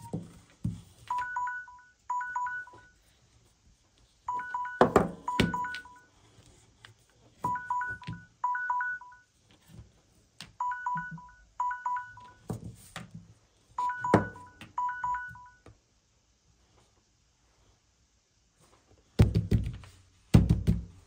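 Samsung Galaxy phone timer alert beeping: short two-tone beeps in quick pairs, a group about every second, stopping about 16 s in. Knocks from the phones being handled are heard in between, and several loud knocks come near the end.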